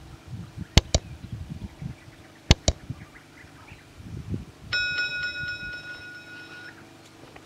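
Sound effects of a subscribe-button animation: two pairs of sharp mouse clicks, then a bright electronic bell chime held for about two seconds. Faint low thumps run underneath.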